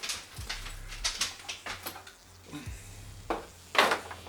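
Items from an RC boat kit being handled and set down: a series of light clicks and clatters, louder near the end.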